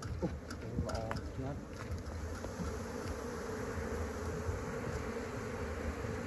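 Honey bees buzzing in a steady drone over an opened hive box as it is smoked, the colony disturbed by the opening.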